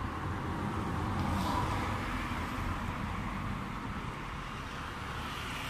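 Steady background road traffic noise, a continuous low rumble and hiss with no distinct events.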